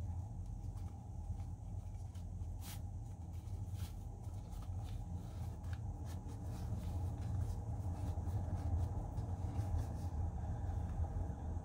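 Faint rustling and light clicks of a cotton drawstring pouch being untied and handled, over a steady low hum.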